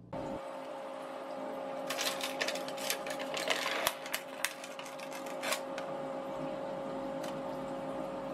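Steady machine hum with a run of light metallic clicks and clinks from about two to five and a half seconds in, as the cut-out aluminium disc is lifted out of the freshly bored hole among the chips and coolant.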